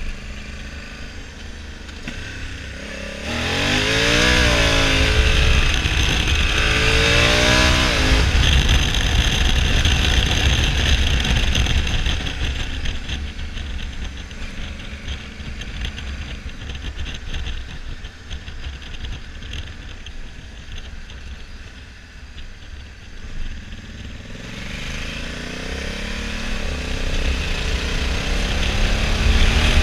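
Honda Africa Twin CRF1100L's parallel-twin engine running on the road. Its revs climb and drop twice a few seconds in, it settles into steady cruising, and it revs up again near the end, over a steady wind rumble on the microphone.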